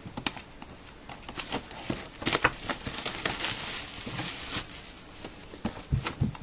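Plastic shrink wrap being torn and pulled off a cardboard box, a dense run of crinkling and crackling, loudest in the middle. A couple of dull knocks from the box being handled come near the end.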